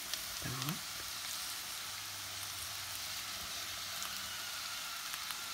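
Steady sizzle of onions frying in butter in a pan while minced boiled meat is tipped in on top of them.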